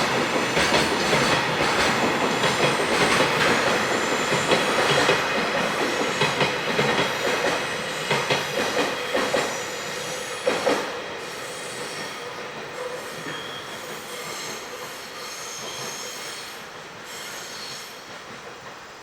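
Freight train wagons rolling past, the wheels clattering over the rail joints with a high wheel squeal. About ten seconds in the noise begins to die away as the train moves off, fading to a faint rumble by the end.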